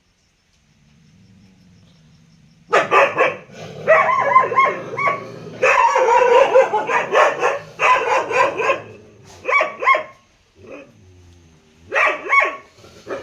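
A dog barking in rapid, repeated volleys. The barks start about three seconds in and run for several seconds, then break off briefly before a few more barks near the end.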